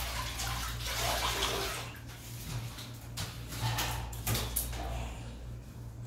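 Water sloshing in a plastic basin as a cloth is wetted, then the cloth wiping inside a chest freezer with a few short knocks, over a steady low hum.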